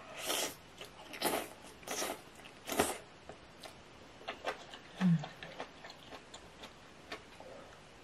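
Noodles from a bowl of malatang slurped into the mouth four times in the first three seconds, followed by wet chewing with small clicks. A short low hum comes about five seconds in.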